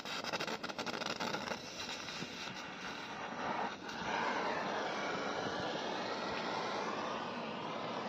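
Brazing torch flame hissing steadily as it heats a copper tube joint on an air-conditioner condenser coil, with crackling clicks through the first few seconds.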